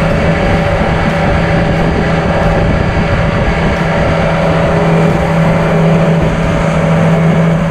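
Boat's outboard motor running at a steady speed with the boat under way, its even hum mixed with dense wind and water noise.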